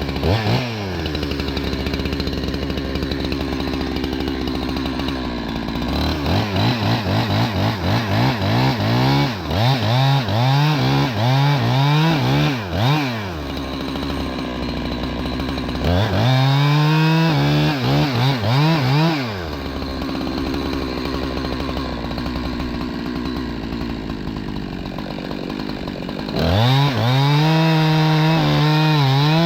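Chainsaw idling, then blipped through a run of quick revs, then held at full throttle for about three seconds at a time twice, dropping back to idle in between.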